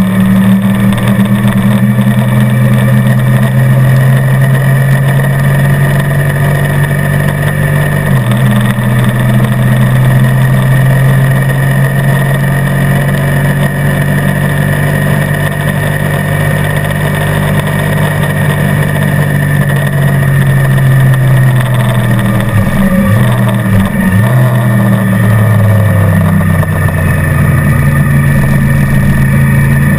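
Motorcycle engine running hard at track speed. Its note steps down about eight seconds in, dips briefly twice a little past the middle, then climbs again.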